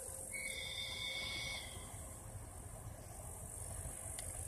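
Faint summer grassland ambience: a high, steady insect buzz from the grass that drops out for a while in the middle, over a low wind rumble. Near the start a short high whistling tone lasts about a second and a half.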